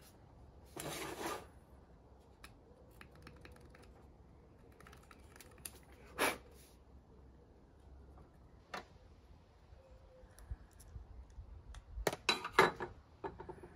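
Small metal clicks, taps and scrapes of a pick and screwdrivers working on the body of a 1990s Shimano M525 SPD pedal. There is a short scrape about a second in, a single sharper tap about six seconds in, and a quick cluster of clicks near the end.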